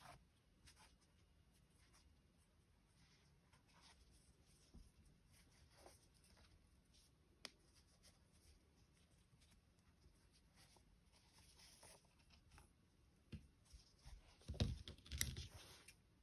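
Faint rustling and small ticks of hands handling a crocheted plush toy while a yarn needle and yarn are pulled through the stitches, with a few louder handling knocks near the end as the toy is set down.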